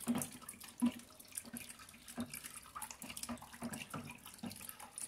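Faint swishing of a thick oil, alcohol and lye mixture being stirred with a long plastic stick in a plastic tub, with small irregular knocks of the stick against the tub, as the mix begins to saponify.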